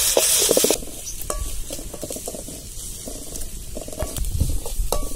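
Chopped onions and ginger-garlic paste sizzling in hot oil in an aluminium pan, stirred with a steel spoon; the sizzle cuts off under a second in. Then a few light clicks and clinks, one with a short metallic ring, as boiled eggs are handled and peeled over a steel pot.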